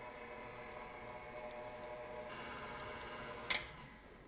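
KitchenAid Artisan stand mixer's motor running steadily, a faint hum with a whine of several steady tones, as the flat beater mixes flour into batter. A sharp click comes about three and a half seconds in, and then the sound drops away.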